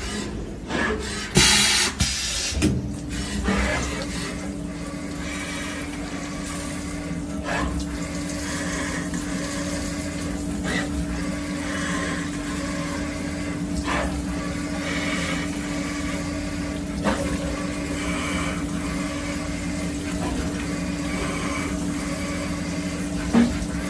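Benchtop CNC milling machine: a few loud clunks and blasts in the first couple of seconds as the automatic tool changer swaps the cutter, then the spindle hums steadily while milling an aluminium motor housing under flood coolant that splashes and streams. Faint knocks come every few seconds as the cutter works the part.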